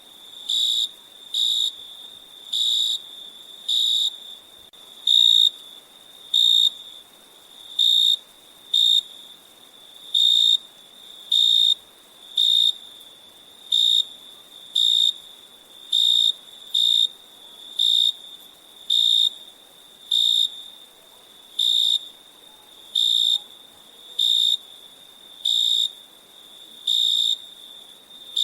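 Crickets chirping: a loud, short, high chirp repeats about once a second in an even rhythm, over a fainter steady high trill at the same pitch.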